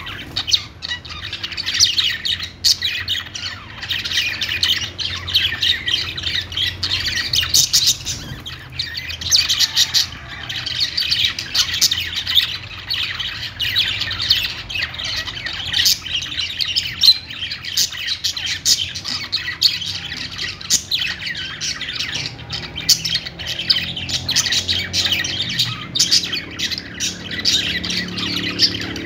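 Budgerigars singing and chirping without pause, a dense stream of quick overlapping chirps and chatter.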